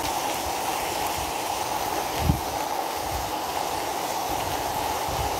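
Steady rain falling on concrete and plant leaves, an even hiss, with one brief low thump about two seconds in.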